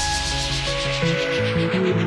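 Electronic background music: sustained synth notes over a steady ticking pulse that grows gradually duller, with a deep bass note dying away at the start.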